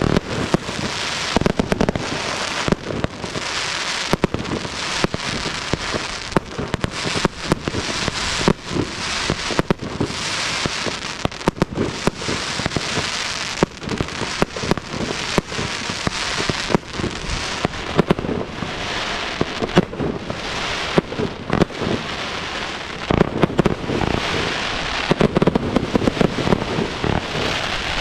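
Fireworks display: a continuous hissing crackle from rising comets and fountains, peppered with many sharp pops and small bangs, growing heavier with deeper bangs in the last few seconds.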